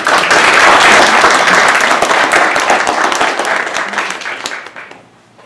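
Audience applauding: a dense patter of many hands clapping that starts all at once and dies away about four and a half seconds in.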